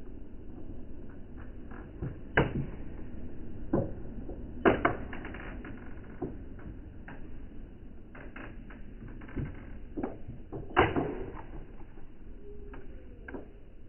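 A few scattered knocks and thumps, the loudest about two and a half, four and a half and eleven seconds in, over a steady low rumble of room noise.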